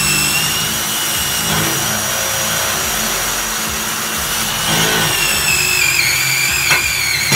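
Cordless drill boring into thick steel H-beam: the motor runs under steady load while the bit squeals against the steel with a high-pitched tone that wavers in the second half, with a few sharp clicks near the end. The bit is struggling in steel too thick for it.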